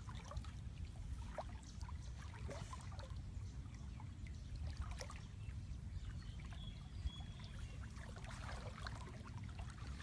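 Shallow stream water splashing and sloshing as people wade and reach into it by hand, with many small, irregular splashes over a steady low rumble.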